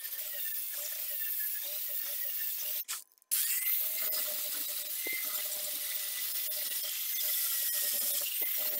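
Electric grinder whining steadily as it grinds the steel of a forged axe blade, with a hiss of abrasive on metal; the sound cuts out abruptly for about half a second some three seconds in, then carries on.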